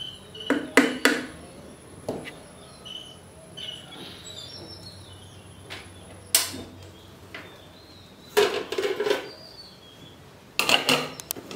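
Wooden stirring stick knocking and scraping against an aluminium pot of cooked rice, in a few short clusters of clatter. Near the end an aluminium lid clatters onto the pot.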